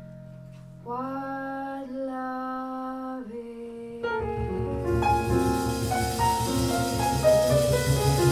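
Jazz ballad played live by a quartet of female voice, piano, double bass and drums. A woman sings a long held note over a quiet accompaniment. At about four seconds the full band comes in louder, with bass and piano, and the cymbals join a second later.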